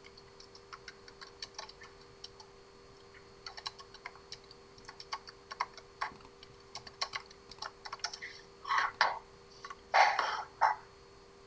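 Typing on a computer keyboard: irregular key clicks throughout, with a few louder, longer sounds near the end and a faint steady hum underneath.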